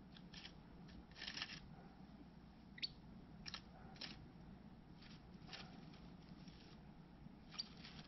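Faint dry rustling and crackling of nest material stirred by nesting birds, in a few short scattered bursts, with one brief rising chirp about three seconds in.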